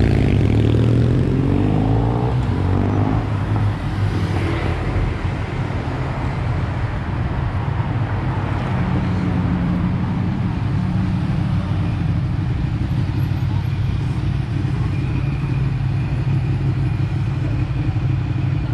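City street traffic: motor vehicles running and going past, with a steady low engine hum throughout and a passing vehicle in the first few seconds.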